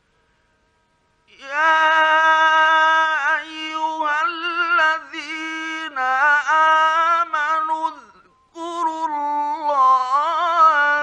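A male Quran reciter chanting in the melodic tajweed style, drawing out long held notes with wavering ornaments, heard through an old 1950s radio recording. He comes in about a second in and stops briefly to breathe near the end.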